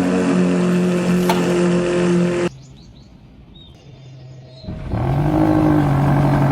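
Vehicle engine sound running steadily, cutting off abruptly about two and a half seconds in. After a quieter stretch with faint bird chirps, an engine starts up, its pitch rising and then holding steady.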